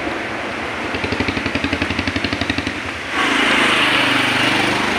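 Road traffic heard from a moving vehicle. About a second in comes a rapid, even putt-putt of an engine, about eight pulses a second, for nearly two seconds. Then at about three seconds in a louder rush of engine and road noise comes in suddenly and holds.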